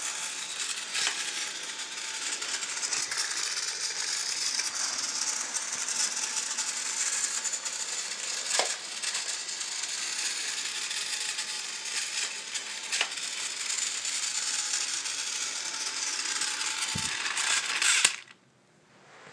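Battery-powered Trackmaster Thomas toy engine running along plastic track with a steady motor whir and rattle, and a few sharp clicks along the way. The sound cuts off suddenly near the end.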